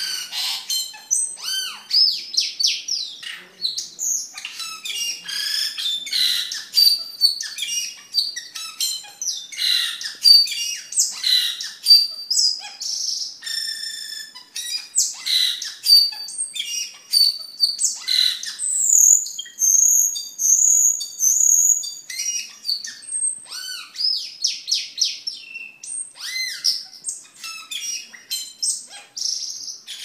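Asian glossy starling (cucak keling) singing without pause: a fast, varied stream of high chirps, clicks, whistles and harsh squawks. About two-thirds of the way through comes a run of thin, high whistled notes.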